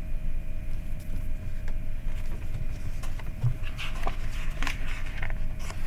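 Steady low room hum, with faint scattered clicks and rustles in the second half.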